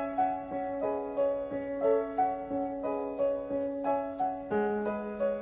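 Background piano music: a gentle repeating broken-chord figure over a held bass note, which shifts lower about four and a half seconds in.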